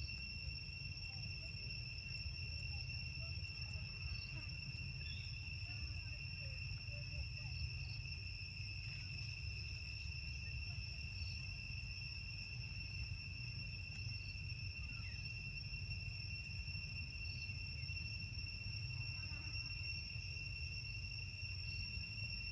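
Steady high-pitched insect drone, a constant unbroken tone, over a low steady rumble.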